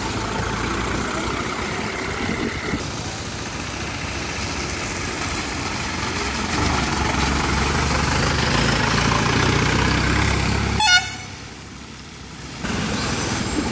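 Diesel lorry engines running as loaded trucks creep past, the engine rumble growing heavier midway. A short horn toot sounds about eleven seconds in.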